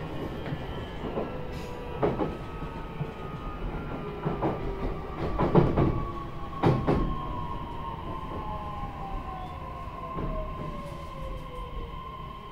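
JR East E131-0 series electric train running, heard from inside its motor car (KuMoHa E131): steady running noise with a motor whine, one tone falling in pitch over the second half, and the wheels knocking over rail joints several times.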